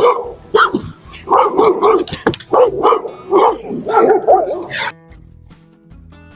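Pit bulls barking loudly and repeatedly in quick barks. The barking stops abruptly about five seconds in, leaving quiet background music.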